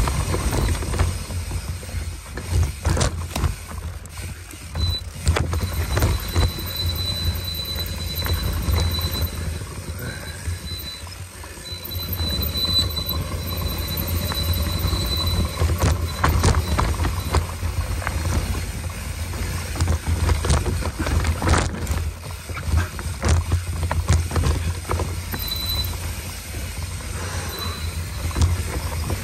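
Mountain bike descending a dirt and rock singletrack: steady wind rush on the microphone, with the tyres rolling over dirt and rocks and the bike rattling and knocking over bumps. A thin high whine comes and goes through the middle.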